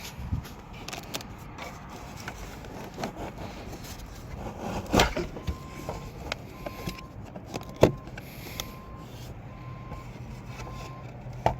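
Handling noises inside a wrecked car's cabin: knocks and clicks as interior parts are touched and moved, the loudest about five and eight seconds in. A faint short beep repeats about once a second through the second half, and a low hum starts near the end.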